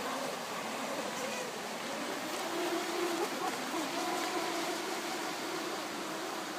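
Distant whine of a radio-controlled jetski's 2600kv brushless electric motor, its pitch wavering up and down as the throttle changes, over a steady hiss.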